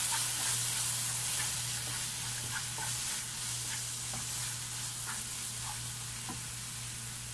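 Onions, tomatoes and green chillies sizzling steadily in oil in a nonstick pan as a wooden spatula stirs them, with light scrapes of the spatula against the pan. The masala is being sautéed with freshly added turmeric, chilli and coriander powder.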